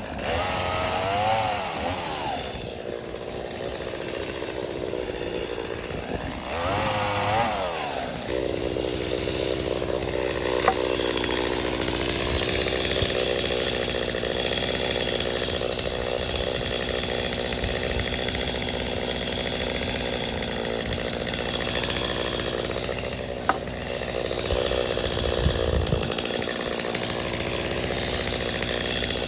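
Stihl MS250 two-stroke chainsaw revved up and down twice, then running steadily at a lower pitch under load as it cuts through a sweet gum log.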